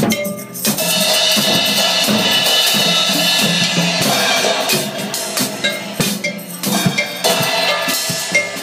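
Loud, cluttered drumming and percussion, with many sharp strikes over a dense wash of sound.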